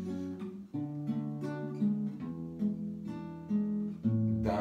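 Background music: an acoustic guitar playing slow plucked and strummed chords.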